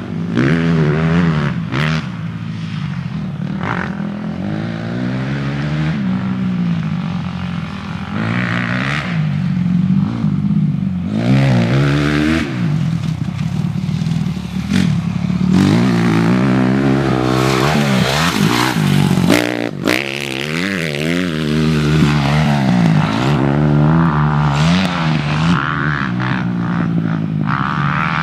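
Motocross dirt bike engine revving hard, its pitch climbing and dropping over and over as the rider works the throttle and shifts around the track. A few sharp knocks cut through now and then.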